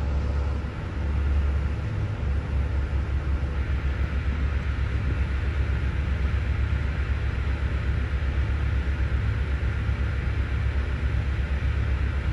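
A towboat's diesel engine running steadily: a low rumble with a fast, even throb.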